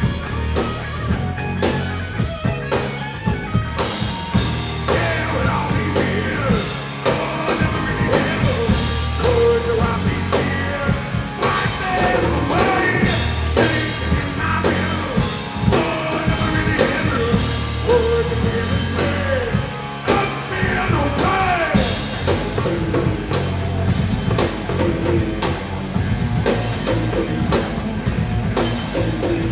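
Rock music: a singer over a drum kit and band, played continuously and loud.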